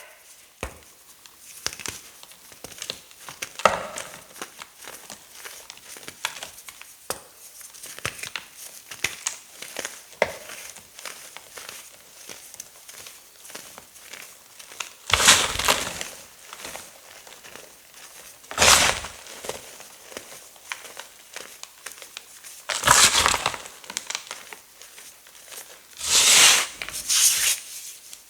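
Tough gym chalk mixed with silver glitter being crushed: a run of small crackles and crumbles, with four louder, longer crunches in the second half.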